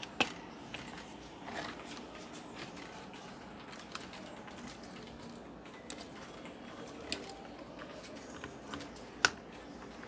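Scattered light clicks and taps of plastic and metal parts being handled as an opened induction cooker's coil and circuit board are fitted back in place, with the sharpest click near the end.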